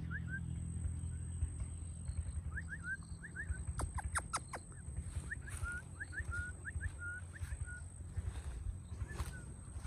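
A bird chirping in short, quick runs of two to four notes, repeated several times over a low rumble, with a handful of sharp clicks about four seconds in.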